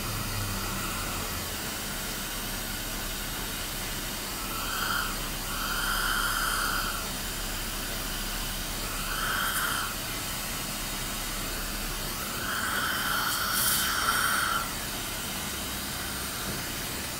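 Steady hiss with about four louder whooshing surges of one to two seconds each, rising and falling.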